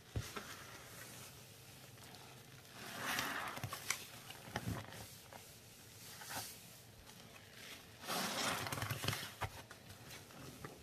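Gloved hands squeezing and pressing paste-soaked sponges in thick blue paste: wet squelching with small crackles and pops. There are longer squishes about three seconds in and again near the end, with a shorter one in between.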